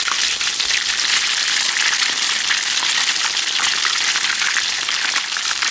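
Egg-dipped, starch-coated cod fillet pieces frying in plenty of hot oil in a frying pan: a steady sizzle with fine crackling.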